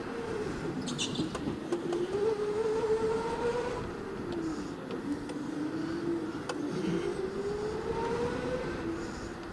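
Electric go-kart motor whining, its pitch rising and falling several times as the kart slows for corners and accelerates out of them.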